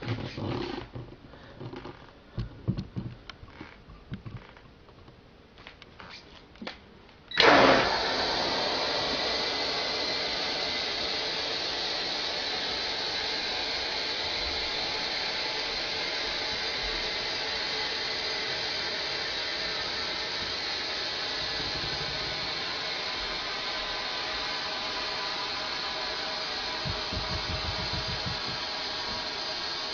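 A few faint clicks, then about seven seconds in, compressed air from a tank at about 105 psi bursts through an electrically opened sprinkler valve as the alarm clock triggers it. It continues as a steady rushing hiss of escaping air.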